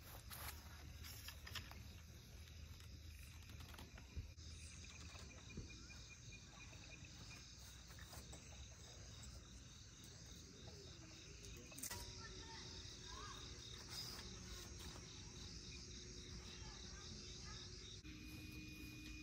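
Faint, steady chirping of night insects such as crickets. A few soft knocks, like a stake being hammered into grass, come in the first four seconds.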